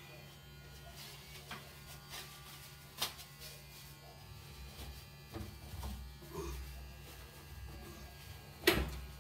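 Electric pet hair clippers buzzing steadily as they shave a cat's fur short, with a few light knocks and one sharp knock near the end.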